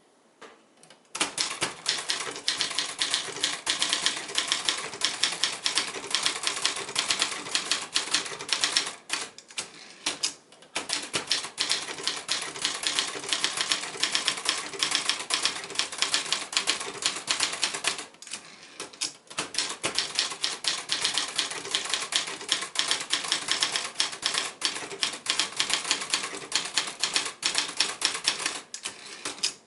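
1963 Brother Valiant ultraportable typewriter being typed on: a fast, steady run of key strikes starting about a second in, broken by two short pauses about a third and two thirds of the way through.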